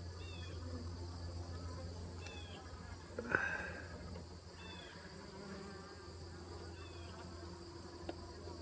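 Honeybees buzzing around the opened top bar hive, a steady hum. A short high chirp recurs about every two seconds, and there is one brief knock about three seconds in.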